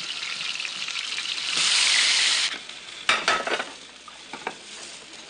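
Steaks sizzling in a hot frying pan. The sizzle swells loud for about a second near the middle, then settles, and a few short clinks and knocks of kitchenware follow.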